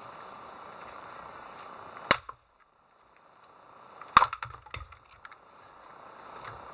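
Splitting axe striking firewood twice, about two seconds apart; the second blow is followed by a few small knocks of wood.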